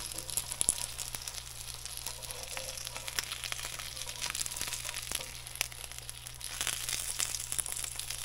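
Spanish mackerel fillets sizzling skin-side down in oil in a cast-iron skillet: a steady hiss with a dense crackle of small pops.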